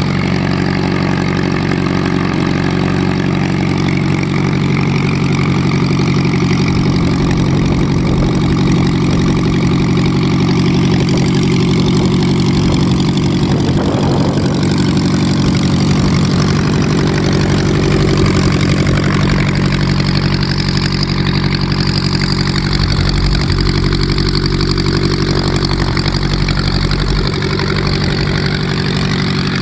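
Teenie Two's air-cooled VW Type 1 flat-four engine idling steadily with the propeller turning, on its first run after new valve adjustment screws were fitted. The engine note shifts a little about halfway through.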